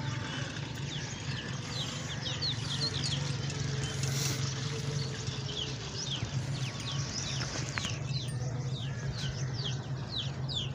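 Birds chirping in many short, quick falling notes, over a steady low hum.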